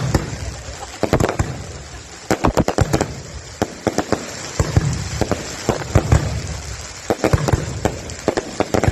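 Aerial fireworks exploding, a rapid, irregular series of sharp bangs that come in clusters every second or so.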